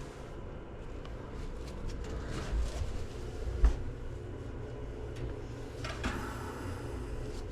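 Hand-work noises on an aluminium shower door frame: light rubbing and small taps, with one sharp knock about three and a half seconds in and a short scrape near the end, over a steady low hum.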